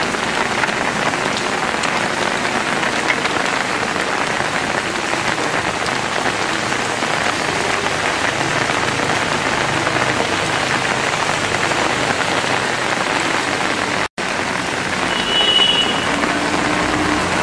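Steady heavy rain pattering on wet paved ground, with a momentary drop-out about fourteen seconds in.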